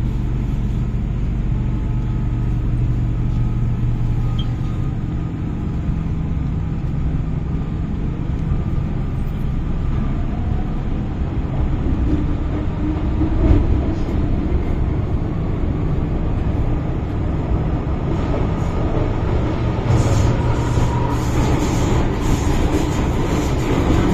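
Old MTR Island Line M-Train running, heard from inside the car: a steady rumble of wheels on rail and running gear, with a single thump about halfway through.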